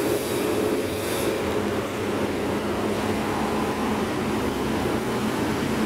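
Steady low rumble of background noise, with a brief soft hiss in the first second.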